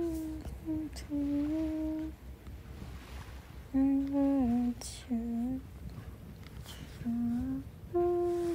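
A voice humming a slow tune in held notes, with short pauses between phrases.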